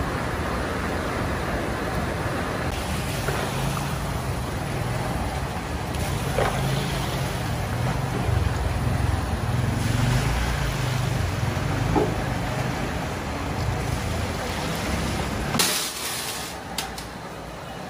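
Workshop machinery running with a steady low hum while water splashes over a basket of small metal screws. Near the end a short loud crash of the screws going into a metal hopper, followed by a few light clinks.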